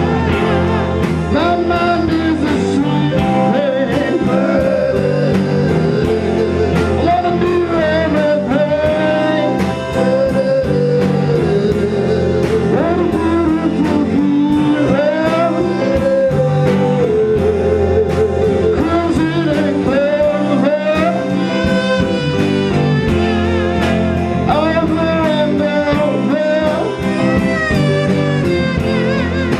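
Live rock band playing: a singer's voice over electric guitar, with a steady beat.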